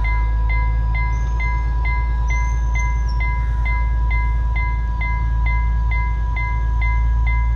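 Railway level-crossing warning bell ringing in rapid, even strokes, about two a second, over a steady ringing tone: the alarm that a train is approaching. A steady low rumble runs underneath.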